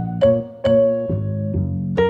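Background music: a piano playing a light melody of single struck notes, each ringing and fading before the next.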